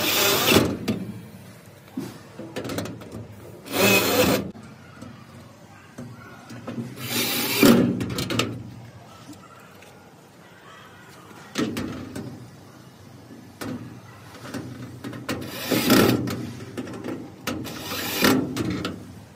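Hand tools working on a wooden door during a lock installation: about five short rasping, scraping strokes a few seconds apart, with scattered clicks and knocks between.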